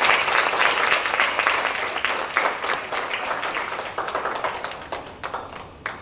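Audience applauding: many hands clapping, loudest at first and dying away near the end.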